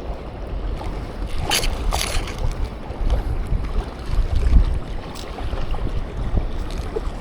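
Wind buffeting the microphone over shore waves, a steady low rumble, with a couple of brief sharp scratchy sounds about a second and a half in.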